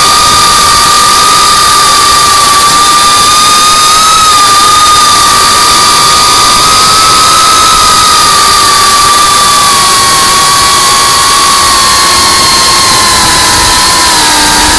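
3.5-inch FPV quadcopter's brushless motors and propellers whining steadily, recorded on the drone itself with wind noise over the microphone. The pitch drifts with the throttle and drops near the end as the drone eases off.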